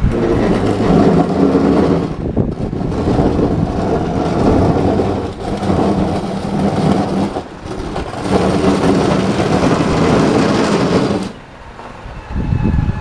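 A DIY electric tractor's motor running with a steady pitched whine, in four spells of a few seconds each with short breaks between them, cutting off about eleven seconds in.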